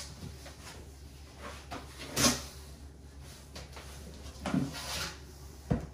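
Cardboard box and packaging being handled while it is opened: a few scraping, rustling knocks. The loudest comes about two seconds in, and a short low thump lands near the end.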